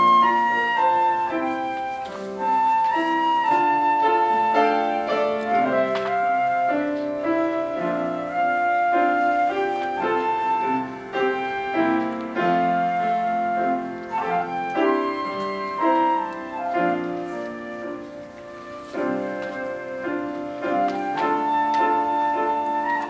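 Classical piece for a solo melody instrument with grand piano accompaniment: the soloist plays a line of held notes over changing piano chords.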